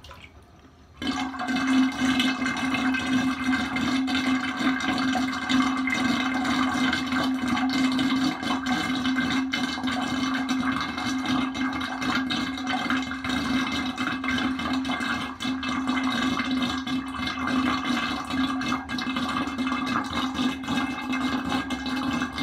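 Water running hard in a bathroom, turned on suddenly about a second in: a steady rushing hiss with a low hum underneath.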